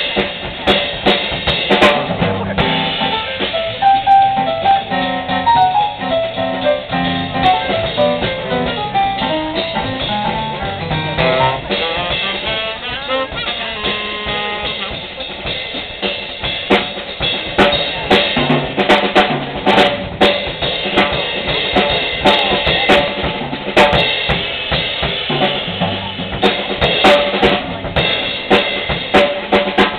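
Live jazz band, with piano, guitar, upright bass and drum kit, playing a swing tune. A quick run of melody notes rides over the rhythm section in the first half. Then the drums take over with many sharp snare, cymbal and bass-drum hits.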